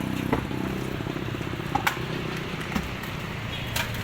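Garbage truck engine running steadily as the truck drives on, with a few sharp clicks or knocks over it.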